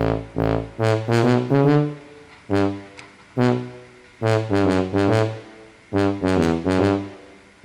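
Background music: a melody of short, detached pitched notes played in quick phrases with brief gaps between them.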